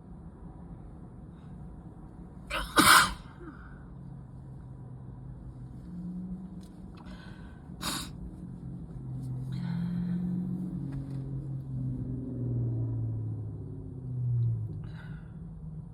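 A person sneezing in an itchy sneezing fit: a loud sneeze about three seconds in, with a short intake just before it, and a second sharp sneeze about eight seconds in, with breathy sniffs and breaths between. A low rumble sits underneath in the second half.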